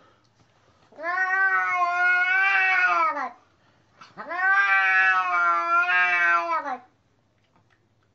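Grey fold-eared cat meowing twice, two long calls of over two seconds each with a short break between them. Each call drops in pitch as it ends.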